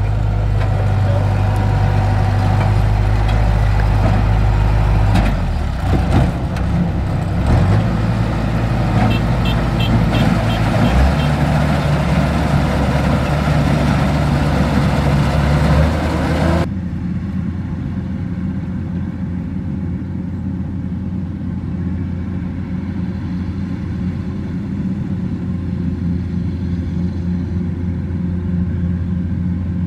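Kubota DC-105X combine harvester's diesel engine running with a steady low drone, with a few knocks in the first half. About halfway through the sound drops abruptly to a duller steady hum as the machine cuts rice.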